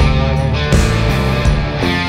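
Background rock music.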